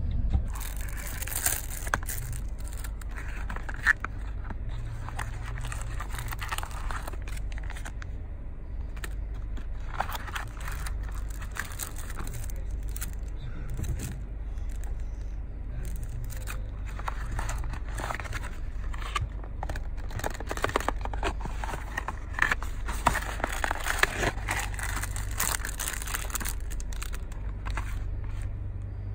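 Plastic wrappers and paper packets of a travel welcome kit crinkling, rustling and scraping as they are handled, over a steady low hum.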